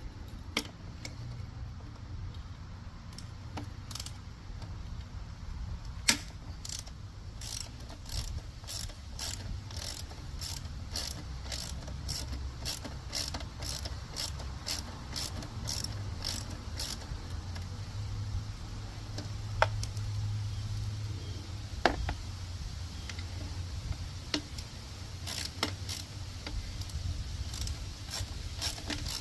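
Hand tools clicking on metal scooter parts during restoration work: a steady run of about two clicks a second, with a few louder single clicks, over a low steady hum.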